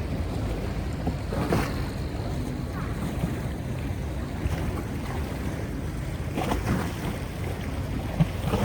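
Steady low rumble of a passenger river boat under way, its engine and the rushing water mixed with wind buffeting the microphone, swelling briefly a couple of times.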